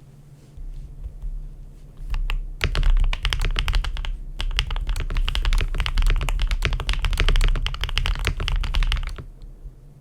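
Typing on a GMK67 mechanical keyboard with lubed and filmed Matcha Feker switches and GMK-style clone keycaps. A few scattered keystrokes give way, about two and a half seconds in, to a fast, continuous run of key presses that stops near the end.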